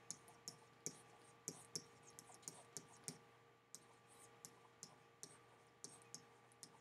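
Faint, irregular clicking and ticking of a stylus tip on a digital writing surface as words are handwritten, a few clicks a second, over a faint steady electrical hum.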